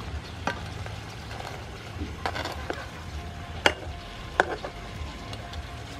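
Metal spatula stirring lobster pieces in a frying pan, scraping and knocking against the pan over a low sizzle; the two sharpest knocks come about three and a half and four and a half seconds in.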